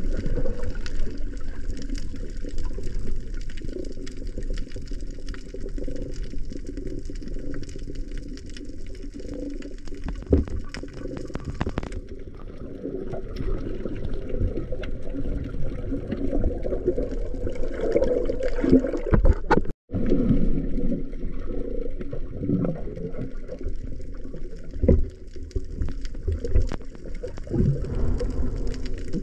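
Underwater sound from a camera in a waterproof housing: a muffled wash of moving water and gurgling, with scattered knocks and clicks against the housing. The sound drops out for a moment about two-thirds of the way through.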